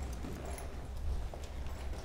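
A horse's hooves striking and scuffing soft, deep arena dirt in quick, irregular steps as it darts side to side in front of a calf. A low steady rumble runs underneath.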